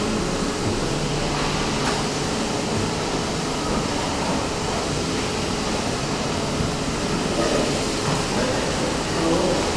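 Steady rushing noise of the sea and wind, even throughout, with no single sound standing out.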